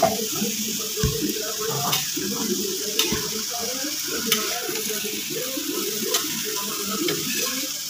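Chopped onions and raw mango sizzling as they fry in a kadhai over a gas flame, turned with a perforated ladle that clicks and scrapes against the pan every second or so.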